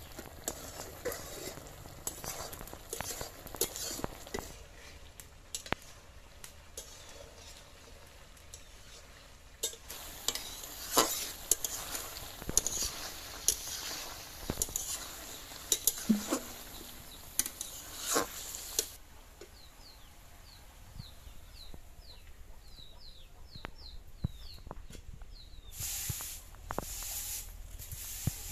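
A metal ladle stirs and scrapes in an iron kadai while fish and raw banana sizzle over a wood fire, in scattered clicks and scrapes that get busier in the middle. Near the end, a grass broom sweeps the concrete floor in a few quick rushing strokes.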